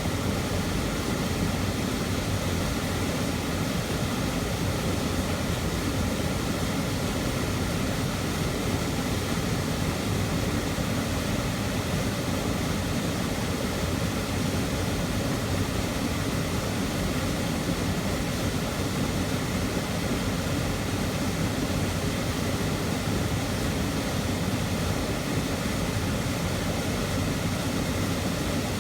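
Waterfall running with a loud, steady rushing, unchanging throughout.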